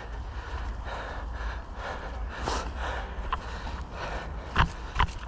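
A person breathing hard while walking over dry leaf litter, with short rustling steps and a low steady rumble on the microphone.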